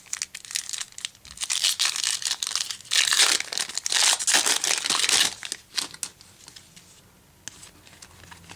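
Foil wrapper of a 2010 Topps football card pack being torn open and crinkled in the hands, a dense crackling that is loudest about three to five seconds in and dies away to a few faint rustles after about six seconds.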